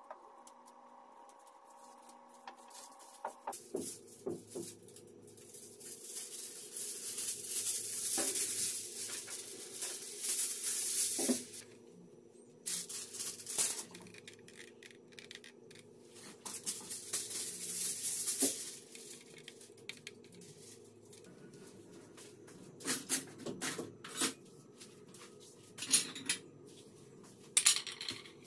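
Aluminium foil pulled off the roll and crinkling as sheets are spread and pressed over a gas stove top, in two long stretches, followed by scattered taps and clicks near the end.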